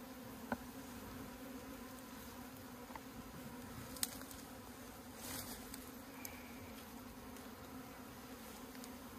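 Honeybees buzzing in a steady hum around a hive opened for honey harvest, with a short sharp click about four seconds in.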